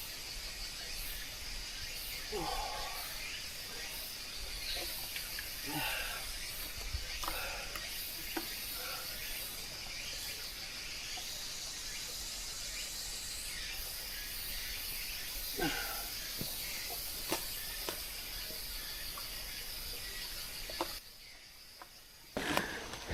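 Steady high-pitched insect chorus in mountain forest, with scattered short rustles and a few sharp snaps from someone moving along the trail. The chorus drops away for about a second near the end.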